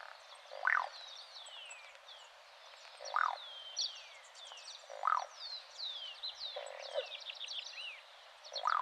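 Croaking ground dove (Columbina cruziana) giving its short croaking call about every two seconds, five times in all. Chirps and descending whistles of other small birds sound in the background.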